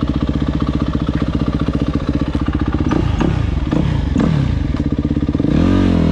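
2005 Yamaha YZ250F's single-cylinder four-stroke engine running, its revs dropping several times between about three and five seconds in, then climbing and getting louder near the end.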